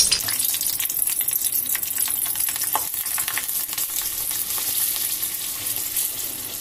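Lightly pricked green chillies in a wire-mesh strainer sizzling and crackling in hot oil in a kadai. The sizzle starts suddenly as they go into the oil, then carries on steadily with many fine crackles.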